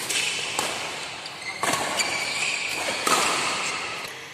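Badminton rackets striking a shuttlecock in a fast doubles rally: about four sharp hits at uneven spacing, each ringing out in a large hall.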